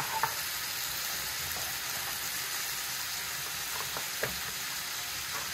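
Potatoes and vegetables frying in oil in a metal karahi: a steady sizzle, with two short sharp clicks, one just after the start and one about four seconds in.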